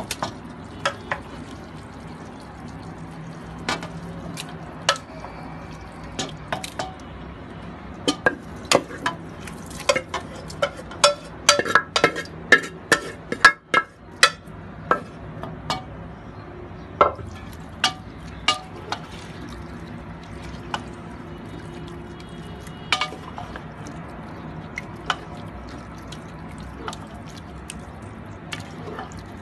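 A spoon stirring spinach and chicken in a metal pot, clinking and knocking against the pot with brief metallic ringing. The clinks come every second or so, then in a fast run of several a second in the middle, over a steady hiss from the cooking food.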